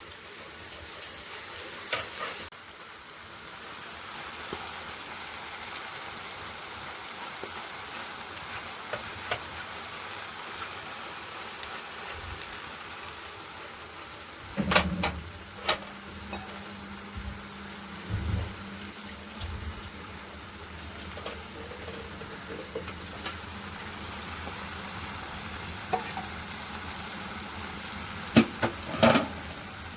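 Food sizzling steadily in hot oil in a pan while being stirred, with sharp knocks of a utensil against the pan a few times, loudest near the middle and near the end.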